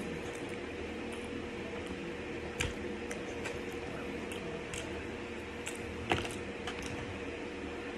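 Small clicks and crunches of chewing crispy fries and handling food in a plastic takeout tray, over a steady low hum. There are two sharper knocks, about two and a half seconds in and again about six seconds in.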